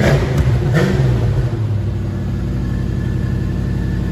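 Classic Ford Mustang engine idling, given a short throttle blip just under a second in, then settling back to a steady idle.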